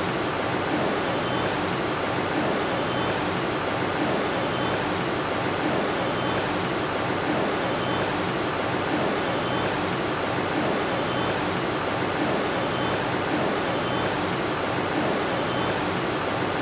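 Steady sizzle of lentil fritters (piyaju) deep-frying in hot oil in a frying pan, with faint small pops of spitting oil.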